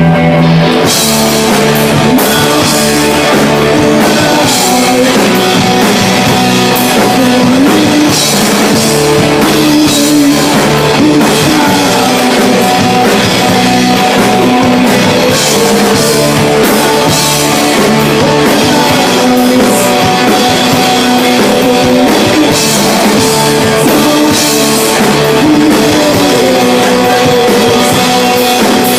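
Live punk rock band playing loudly: electric guitar and drum kit with cymbal hits, the drums coming in about a second in and keeping a steady beat.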